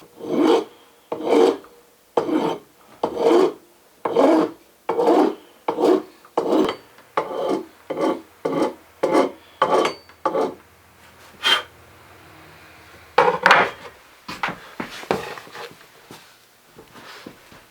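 A hand rasp scraping over wood in a run of about fifteen even strokes that quicken slightly, working a new hickory axe handle. After a pause come a few more strokes, the last ones lighter.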